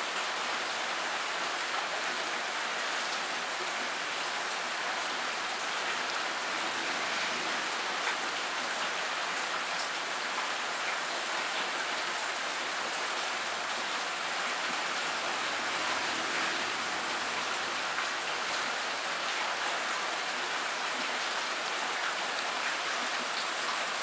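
Steady rain falling on shallow water, an even hiss of drops striking the surface.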